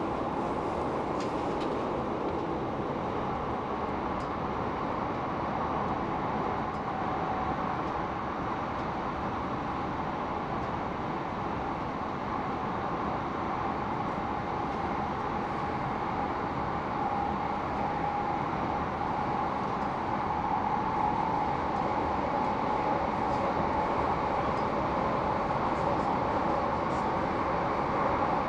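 Steady running noise inside a Heathrow Express electric train carriage, a continuous rumble and hiss with a faint whine that grows a little louder in the second half.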